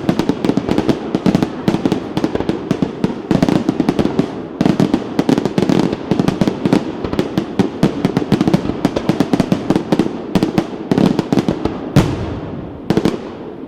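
Aerial fireworks display: a dense, rapid barrage of bangs and crackles, many per second. Near the end it thins out to two single loud bangs with echoing tails.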